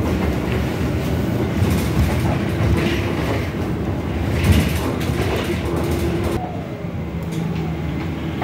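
City bus interior ride noise: the engine running and the road rumbling steadily under the cabin, with a low hum. The higher hiss drops away about six seconds in.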